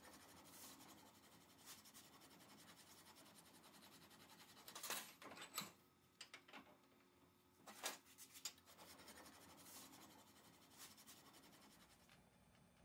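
Faint scratching and rubbing, with a few short strokes around the middle over otherwise quiet room tone.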